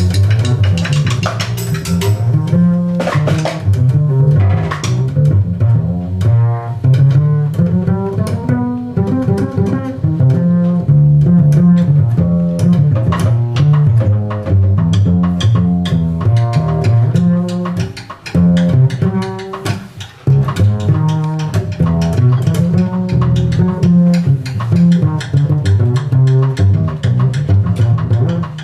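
Live jazz with an upright double bass plucked prominently in front, playing a busy line of low notes, with the rest of the band light behind it.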